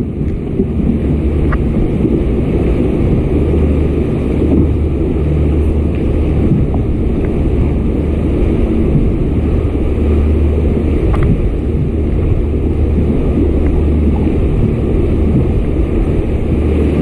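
Steady low rumble of a motorised fishing kayak under way while trolling, mixed with wind on the microphone and water washing past the hull.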